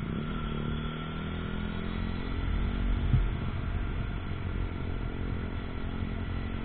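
KTM Duke 125's single-cylinder four-stroke engine running steadily at cruising speed, with a low wind rumble on the microphone.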